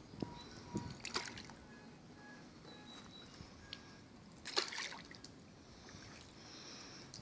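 Quiet water trickling and dripping around a kayak, with two light splashes, about a second in and again past the halfway point.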